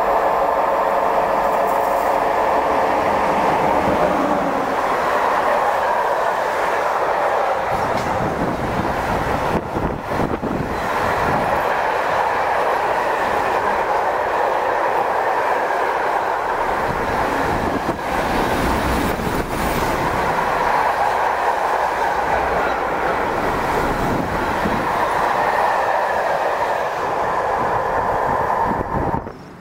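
Electric-hauled freight train of covered sliding-wall wagons rolling past at speed: a steady loud rolling rumble of the wagons with wheel clatter, a faint thin whine at the start, then cutting off abruptly near the end.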